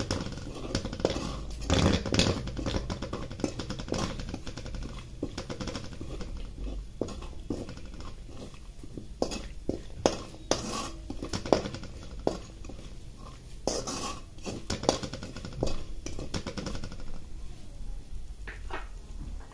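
Metal spatula scraping and clinking against a kadhai in irregular strokes while cashew and almond pieces are stirred as they fry in ghee. The strokes thin out near the end.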